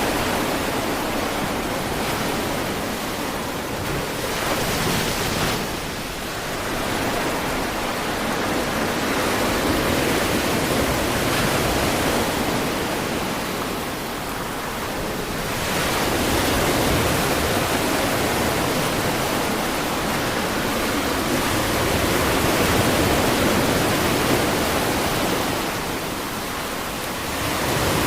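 Ocean surf washing onto a beach: a steady rush of waves that swells and eases every few seconds.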